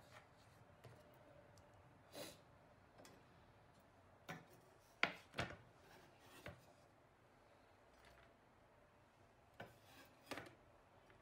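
Hands sweeping cut red onion and sliced green onion across a wooden cutting board into a tray. The sound is a few short scrapes and light knocks against the board and tray, the loudest about five seconds in.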